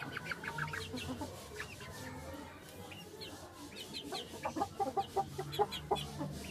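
A flock of hens clucking in short, quick calls, busiest between about four and six seconds in.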